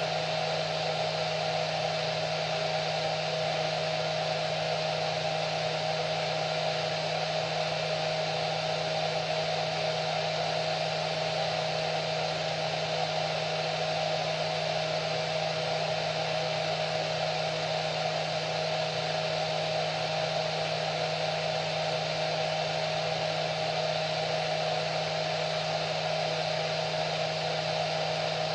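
Hair dryer running continuously, a steady rushing air noise with a constant motor whine.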